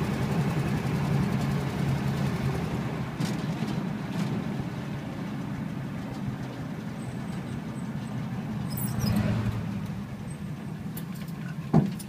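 A 1959 Ford Thunderbird's V8 running steadily as the car drives along, heard from inside the cabin with road noise. The sound swells about nine seconds in, and there is a short sharp knock near the end.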